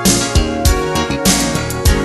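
Background music with a steady drum beat and guitar.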